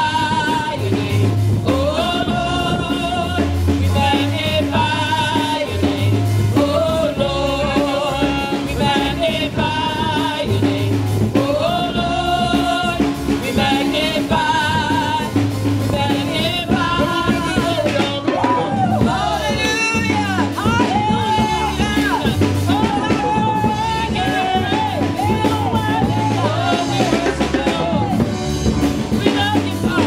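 Worship music: a singer with a wavering vibrato over a steady bass line and drum kit, with sliding, gliding notes in the middle.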